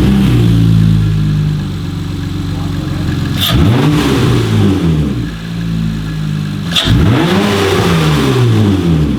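Acura TL engine running at idle with a short ram intake fitted, revved twice, about a third and two-thirds of the way in, each rev rising and falling in about a second. The rev test is for intake sound, which comes out subtly louder with the short ram intake.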